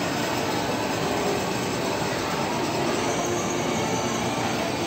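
Battery-powered ride-on toy car running at a steady pace: a constant whir from its electric drive motors and the rolling of its plastic wheels over a stone-tiled floor.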